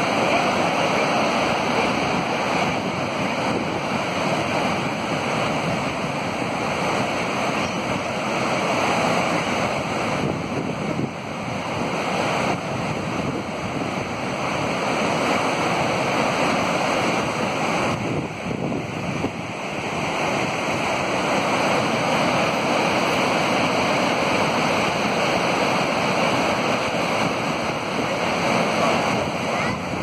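The Rhine Falls, a large waterfall, pouring over its rocks: a steady rush of whitewater that eases briefly twice, about a third and two-thirds of the way through.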